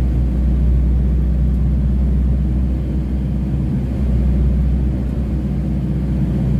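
Steady low rumble of tyre, road and engine noise heard from inside the cabin of a moving vehicle at a constant speed.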